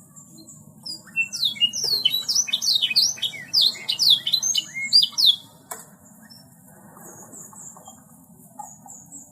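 Domestic canary singing a fast, loud run of quick, downward-sweeping high notes that stops about five and a half seconds in, with a single sharp click just after.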